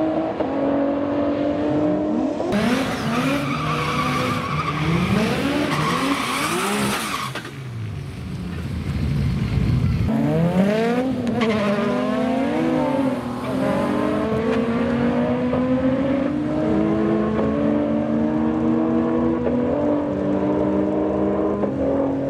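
Twin-turbo VR38 V6, stroked to 4.1 L, in a Toyota 86 drag car. It does a burnout a couple of seconds in, with tyre squeal over high revs, then blips the throttle at the line. It then launches and pulls down the strip at full throttle, the engine note climbing in steps with each upshift.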